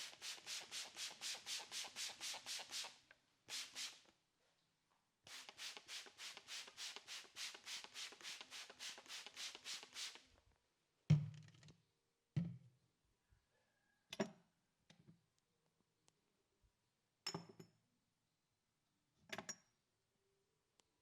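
Rapid rhythmic rubbing, about four strokes a second, in two runs of a few seconds each: a barber's hands scrubbing a face during a face wash. Then five separate thuds a second or two apart, the first the loudest.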